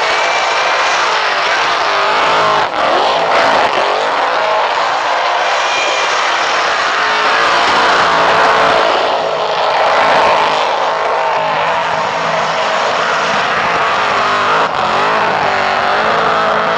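Supercharged V8 burnout car held at high revs, its engine note wavering up and down continuously as the rear tyres spin and smoke.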